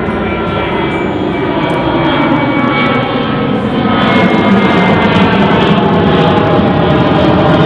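Aeroplane flying over, a loud steady engine rumble with a faint whine that slowly falls in pitch, growing louder about four seconds in.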